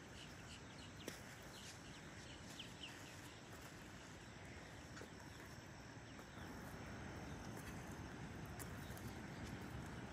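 Faint seashore ambience: a steady hiss of wind and gentle water, with a few short bird chirps in the first three seconds.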